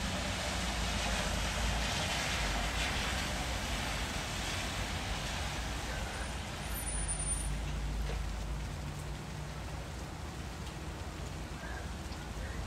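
Steady background rumble and hiss, with a low hum.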